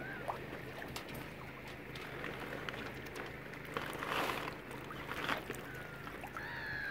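Waterside ambience: a steady low hum under water noise, two short rushing bursts about four and five seconds in, and birds calling near the end with a few falling, whistly calls.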